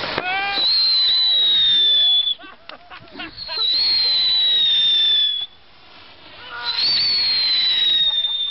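Toy race-car ground fireworks whistling as they shoot sparks: three long whistles, each starting high and sliding slowly down in pitch, with brief crackling pauses between them.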